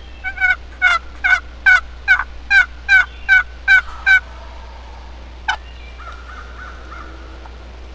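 Turkey call sounding a hen's yelp sequence: about ten loud, sharp yelps in even rhythm, then one more single yelp a moment later, calling to an answering tom.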